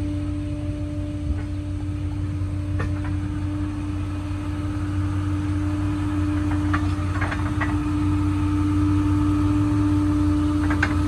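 Vehicle engine idling with a steady hum, with a few light metallic clinks about two-thirds of the way through and again near the end as tow hardware is handled at the car's front wheel.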